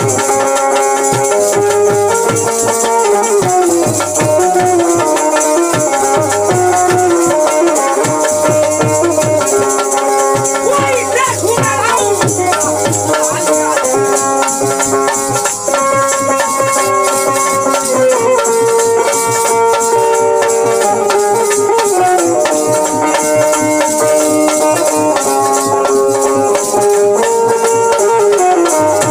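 Live Bhojpuri nirgun folk music: a bulbul tarang and keyboard carry the melody over dholak drum strokes. Hand-held kartal jingles shake steadily throughout.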